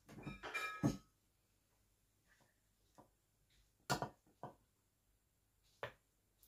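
Dishes clinking and knocking: a quick run of clinks with a brief ring in the first second, then a few separate sharp knocks spaced about a second apart.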